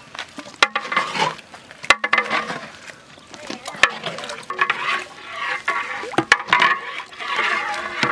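Long metal ladle stirring and sloshing beaten eggs in a large metal pot, with several sharp clinks as it knocks against the pot.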